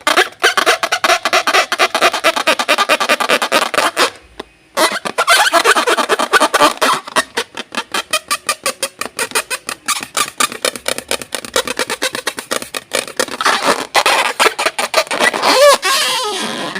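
Music with a fast, choppy rhythm; it drops out for about half a second around four seconds in.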